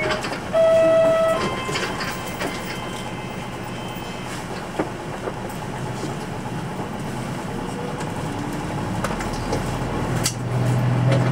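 Inside a Nissan Diesel Space Runner RA city bus: a short electronic chime tone rings once about half a second in over the diesel engine idling at a stop. Near the end the engine note rises and strengthens as the bus pulls away.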